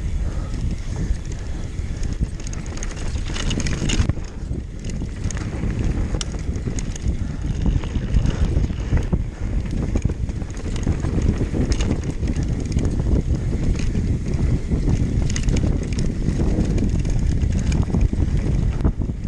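Wind rushing over the microphone of a downhill mountain bike riding fast over rough ground, with the bike rattling and scattered sharp clicks and knocks from the trail.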